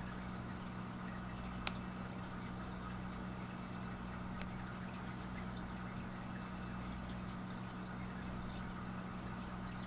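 Steady low hum with a constant hiss, broken by one sharp click just under two seconds in and a fainter tick a few seconds later.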